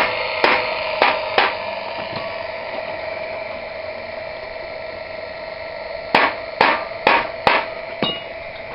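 A steady machine hum with sharp, loud knocks, like strikes on metal: three in the first second and a half, then five more in quick succession from about six seconds in.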